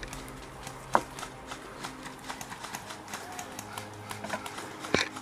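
Airsoft gunfire exchange: irregular rapid clicking and ticking of shots and BB hits, with two sharper snaps, about a second in and near the end.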